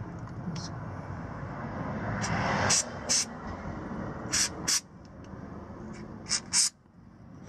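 Aerosol can of rubberized undercoating sprayed in several short hissing bursts onto bare drilled metal. Beneath it is a steady low rumble that fades about two-thirds of the way in.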